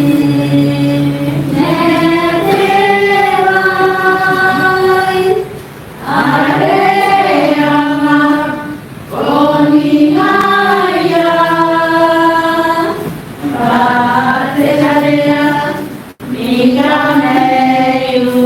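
Choir singing a church hymn in long held notes, phrase by phrase, with short breaks between the phrases.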